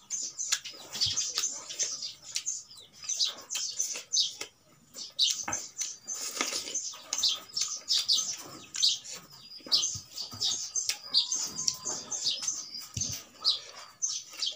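Close-miked mukbang eating sounds: wet chewing and lip-smacking, a quick run of sticky mouth clicks that pauses briefly a little before the halfway point.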